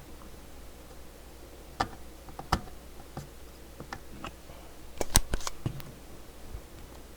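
Sharp clicks and taps of small hand tools working on a circuit board during desoldering: a few spaced single clicks, then a louder cluster about five seconds in.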